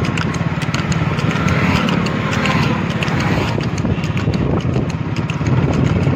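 Water buffalo trotting fast on an asphalt road, its hooves clopping in quick succession, over the steady low rumble of the cart's spoked wheels rolling alongside.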